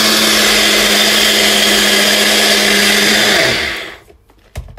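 Personal bullet-style blender running steadily at full speed, blending eggs and cream cheese into a smooth batter; about three and a half seconds in it is switched off and the motor winds down to a stop. A short knock follows near the end.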